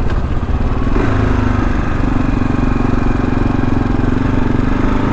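Kawasaki KLR 650's single-cylinder engine running as the bike is ridden on a dirt trail, settling into a steady note from about a second in.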